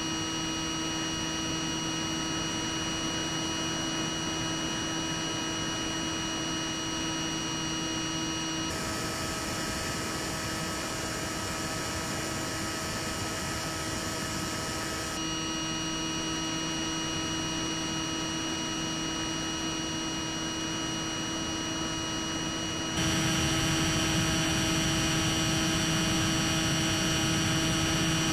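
Steady electrical hum and buzz made of several fixed tones over a hiss, typical of the audio on an analogue FPV video link. It shifts character suddenly three times and is louder after the last change, with no rise or fall in pitch.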